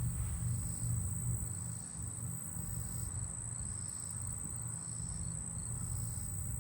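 Two common meadow katydids singing close by: a steady high-pitched buzz, with short runs of ticks now and then.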